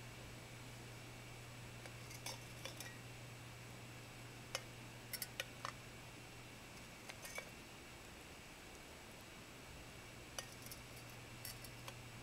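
Faint, scattered light clinks and taps of glass on glass, about a dozen in all, as fingers handle a glass tea infuser seated in a glass teapot.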